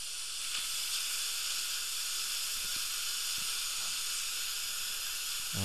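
Dental suction and air-water syringe hissing steadily as phosphoric acid etch is rinsed off a prepared tooth.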